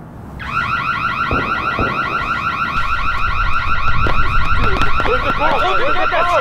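Car alarm going off suddenly about half a second in, a loud, fast, evenly repeating electronic warble.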